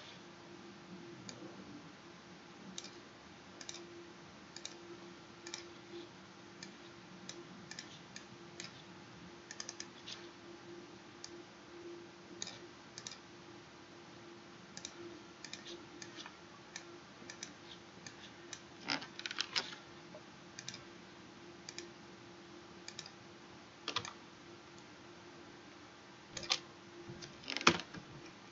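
Irregular clicks of a computer mouse and keyboard, with louder clusters about two-thirds of the way in and near the end, over a faint steady hum.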